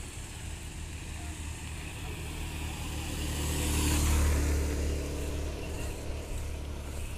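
Escort motorcycles, BMW touring bikes with boxer-twin engines, riding past at low speed. The engine sound builds as the nearest bike passes close about four seconds in, then fades as it moves away.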